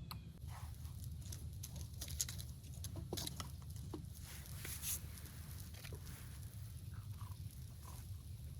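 Faint, scattered clicks and scrapes of camp cooking gear as a second batch of bannock is started in a skillet, over a steady low rumble.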